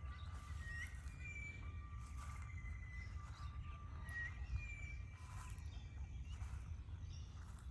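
Faint outdoor ambience: birds calling with long, level whistled notes, several overlapping and some opening with a quick upward flick, over a steady low rumble of wind on the microphone.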